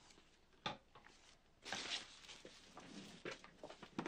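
Faint rustling of a plastic bag and cardboard packaging being handled, with a few light knocks and clicks.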